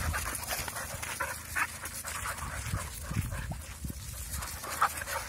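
Dogs panting and scuffling about on a dirt road, with irregular footsteps on the dirt.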